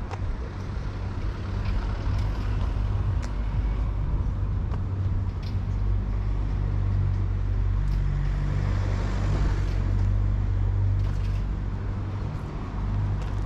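City street traffic with a motor vehicle's engine running close by as a steady low hum. A passing vehicle swells up about eight seconds in.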